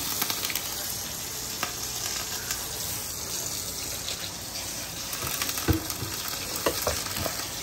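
Tap water running steadily into a pot as it is washed, with a few small clicks and brief squeaks of the pot being handled.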